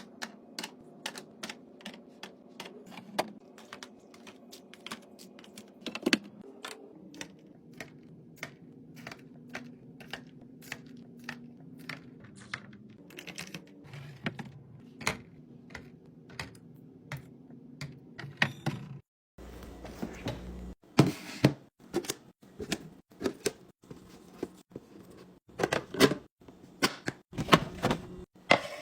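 Quick sharp clicks and taps of containers and packages being handled and set down during a fridge restock, about two to three a second, over a faint low hum. After a brief break about two-thirds of the way in, the knocks and clacks come louder and further apart.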